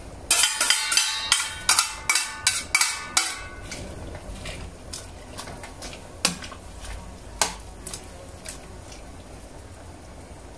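A ladle knocking and scraping against a stainless steel pot while stirring celery into boiling soup: a quick run of ringing metallic clanks in the first three seconds, then occasional single knocks.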